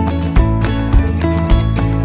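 Upbeat background music with a steady beat and guitar.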